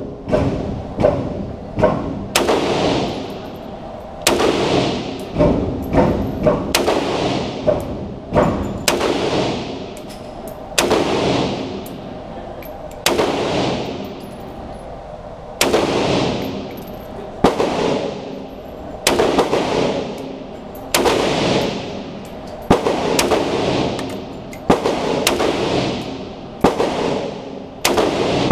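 WASR-10 AK-pattern rifle in 7.62x39 firing single shots at an irregular pace, about one every one to two seconds. Each crack carries a long echoing tail off the walls of an indoor range.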